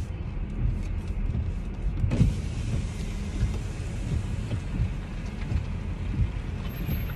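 Car engine and road rumble inside the cabin as the car moves slowly forward, with a brief louder knock about two seconds in.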